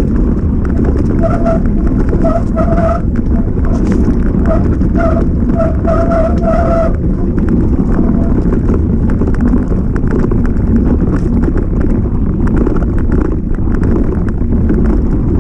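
Mountain bike descending a rough trail, heard from a camera on the bike or rider: steady wind rumble on the microphone and constant rattling and clattering of the bike over the ground. Short repeated squeals at one pitch come and go during the first half, then stop.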